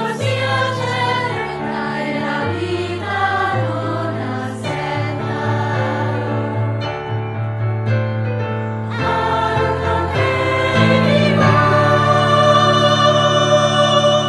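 Children's choir singing a jingle over instrumental backing with sustained bass notes, swelling about three-quarters of the way in into a loud held final chord.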